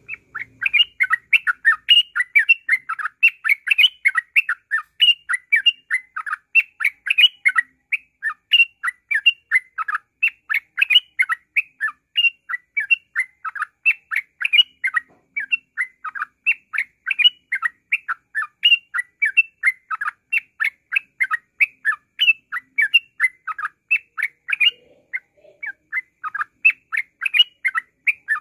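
Yellow-vented bulbul (trucukan) singing 'ngropel', its dense, unbroken song: a fast run of short chirps, about three a second.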